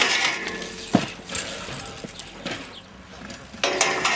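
A BMX bike hits the ground: one sharp impact about a second in, followed by a few faint clicks and rattles from the bike.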